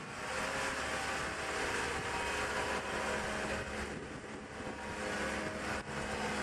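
Engine of a mobile boat hoist (travel lift) running steadily as the lift drives with a fishing boat hanging in its slings, a steady whine over the engine noise.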